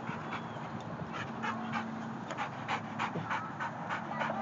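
White Labrador retriever panting open-mouthed: quick, even breaths, about four a second, starting about a second in.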